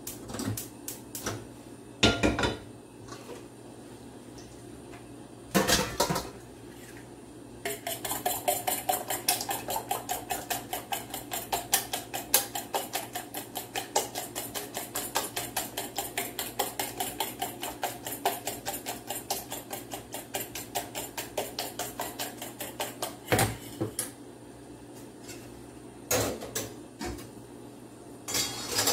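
Eggs being beaten with a spoon in a small metal bowl: a quick, even run of clinking strokes lasting about fifteen seconds, with a few separate sharp knocks of utensils and bowls before and after.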